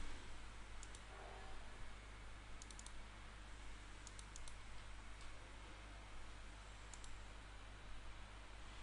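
Faint computer mouse clicks, some single and some in quick runs of two or three, over a steady low hum and hiss.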